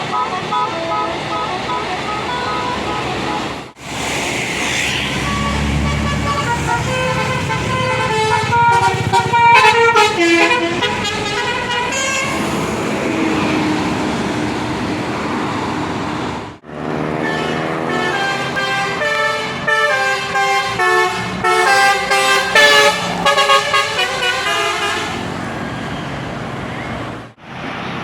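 Tour bus telolet Basuri horns playing fast musical tunes, runs of quickly changing notes. The sound cuts off and restarts about four seconds in, near the middle, and shortly before the end.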